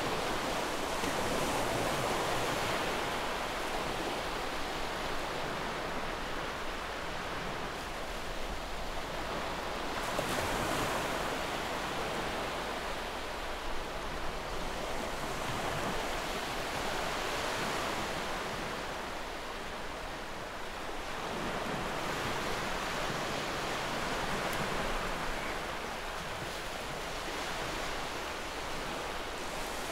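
Sea waves breaking and washing over a stony shore: a continuous rush of surf that swells and eases every several seconds.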